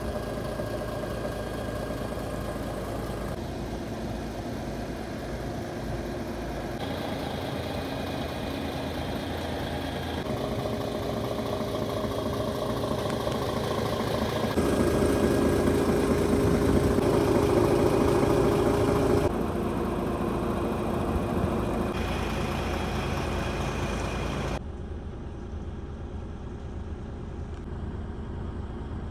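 The 12.9-litre PACCAR MX-13 six-cylinder diesel of a 2016 DAF XF 510 tractor unit idling steadily. It is loudest for a few seconds around the middle and quieter and more muffled near the end, heard from inside the cab.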